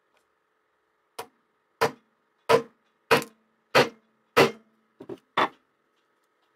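Hammer tapping the rivets that fix a small metal nameplate to a bench grinder's cast base: eight sharp metallic taps at an even pace, about one every half second or so, some with a short ring, the last two coming closer together.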